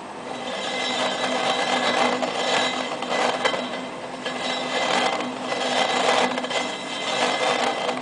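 Suzuki GS1000 motorcycle front wheel turning on a truing stand: a steady mechanical whirring that swells and eases unevenly about once a second.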